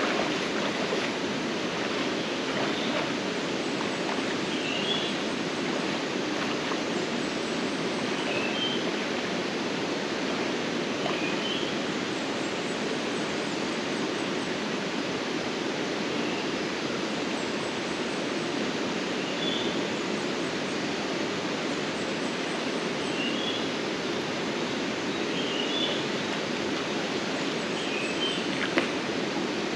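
Shallow, rocky river flowing: a steady rush of water over stones, with faint short high chirps every few seconds and a single click near the end.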